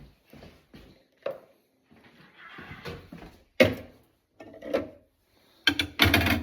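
Irregular knocks and clunks of objects being handled, with a sharp knock about halfway through and a louder clatter near the end.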